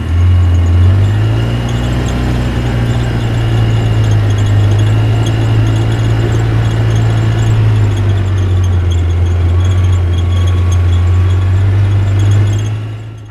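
Heavy construction-vehicle engine running steadily: a deep, even rumble with a thin high whine above it.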